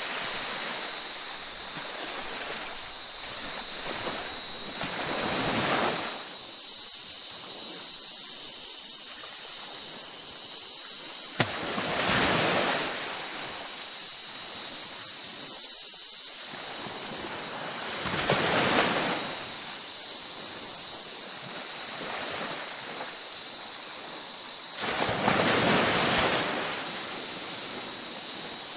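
Ocean waves breaking on a tropical beach: a steady wash of surf with a louder swell every six or seven seconds, four times in all. A faint steady high tone runs behind it.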